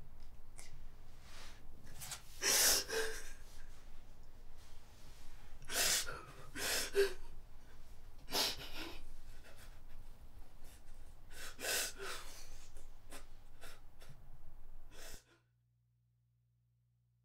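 A young woman sobbing, with loud breaths coming every few seconds. The sound cuts off suddenly near the end.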